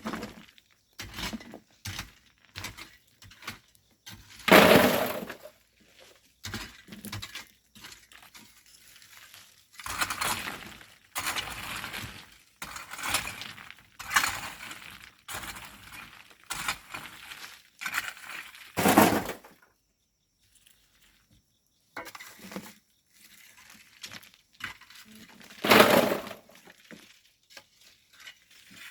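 Volcanic sand and stones being worked with hand tools, clattering and crunching in irregular bursts. The loudest bursts come about five, nineteen and twenty-six seconds in.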